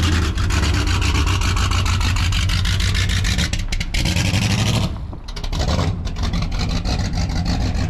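Ex-NASCAR Busch Series stock car's V8 running with a rapid, even pulsing exhaust, then pulling away; the sound dips about five seconds in and carries on quieter as the car moves off.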